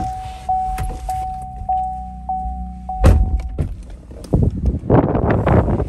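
Chevrolet truck's warning chime dinging steadily, about once every 0.6 s, over a low engine hum. About three seconds in comes a loud door thunk, and a scuffing noise follows near the end.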